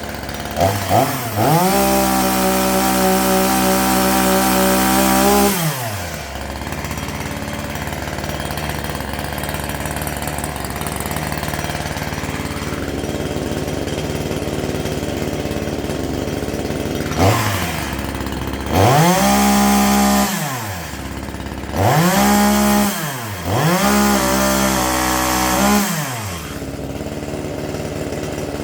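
Gas chainsaw revved to full speed for about four seconds, dropping back to a steady idle, then revved up three more times in shorter bursts near the end.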